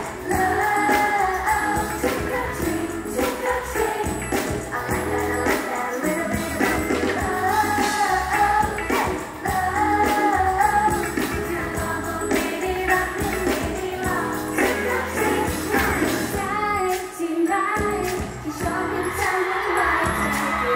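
Pop song with female group vocals over a steady beat, played loud through a concert sound system.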